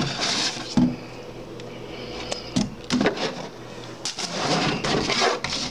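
Tissue paper rustling and a cardboard gift box being handled, in irregular bursts with a low thump about a second in.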